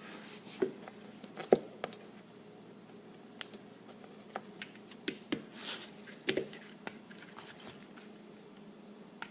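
Glock 19 pistol parts being handled: irregular light clicks and taps of small metal and polymer pieces, the sharpest about a second and a half in and a cluster of them a few seconds later.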